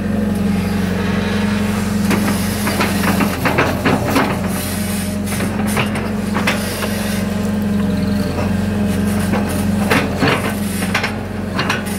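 Hitachi 60 excavator's diesel engine running steadily as its arm and bucket work. Scattered clanks and knocks come from the bucket and the dumped mud, bunched about three to six seconds in and again around ten to eleven seconds.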